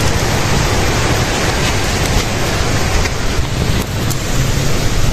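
Steady rushing and low buffeting of wind on the microphone, with a few faint scattered crackles.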